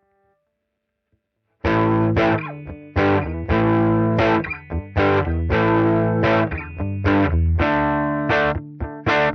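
Gibson Les Paul Tribute electric guitar played through an amp modeler set to a Fender Deluxe Reverb, on the clean tone. It is a rhythmic run of strummed chords that starts about a second and a half in.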